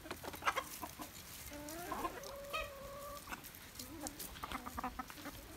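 Chickens clucking, with scattered sharp taps.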